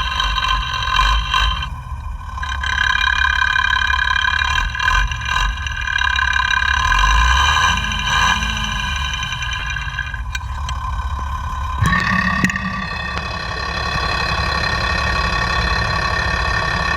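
FAW truck's 260 hp diesel engine idling, heard close up through a mechanic's sound tester (contact microphone), with scattered sharp clicks. About twelve seconds in the sound changes abruptly as the probe moves to another point on the engine. This is the check for the knock that the mechanic traces to the fuel injection pump.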